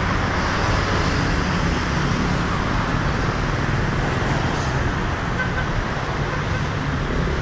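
Steady road traffic noise from cars and motor scooters passing on a city street.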